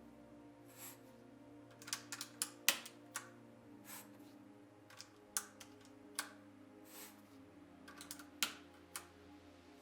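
Plastic keycaps being pressed onto a mechanical keyboard's switches, giving irregular sharp clicks and clacks, some single and some in quick clusters. Faint background music underneath.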